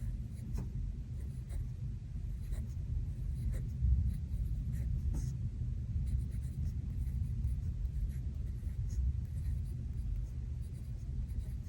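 Paper and sticker handling on a planner page: soft, scattered small ticks and rustles. Underneath is a steady low rumble of thunderstorm ambience.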